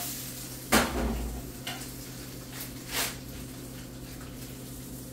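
Cooking utensil and frying pan knocking against each other: a sharp clatter about a second in, a couple of light taps, and another knock about three seconds in, over a steady low hum.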